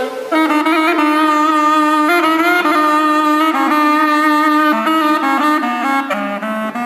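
Solo instrumental music: a reedy wind instrument playing a slow melody of long held notes, sliding into some of them.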